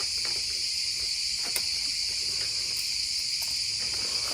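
A steady high-pitched chirring drone, with a few light clicks and taps as plastic toy packaging is handled.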